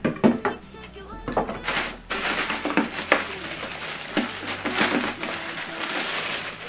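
A few knocks as small speakers are set down on a table, then plastic bags crinkling and rustling as the packed cables are handled.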